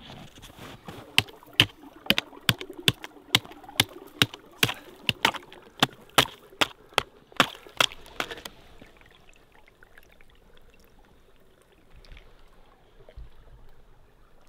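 Footsteps crunching on frozen snow, about two sharp steps a second, for most of the first eight seconds. Then a faint trickle of water as a water bottle is dipped and filled through a hole in the ice.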